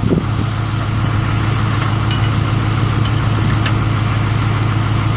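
1987 International S1700 semi truck's D190 eight-cylinder diesel engine idling steadily.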